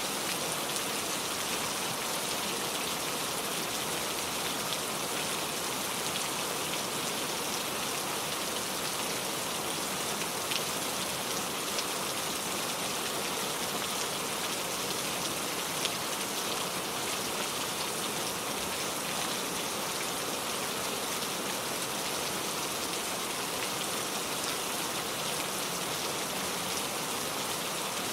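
Heavy rain falling steadily, a dense hiss of many drops hitting surfaces, with the odd louder drop standing out.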